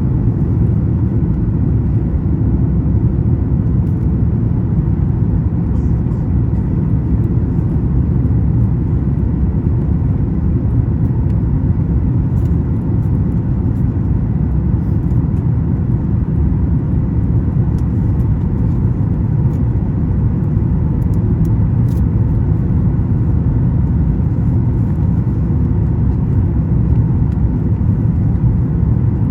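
Steady cabin noise inside a Boeing 737 MAX 9 in flight: an even, low rumble of airflow and its CFM LEAP-1B engines heard from a rear window seat, with a few faint steady tones above it.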